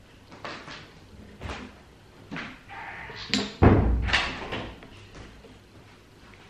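Wooden Jenga-style blocks clicking and knocking as a block is pushed and worked out of the tower by hand, with one loud thump about three and a half seconds in.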